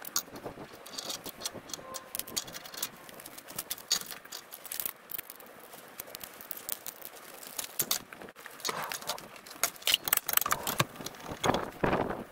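Irregular metallic clinks and rattles of an angle grinder being handled while its disc is changed with a pin spanner; the grinder is not running. The clatter grows louder and busier in the second half.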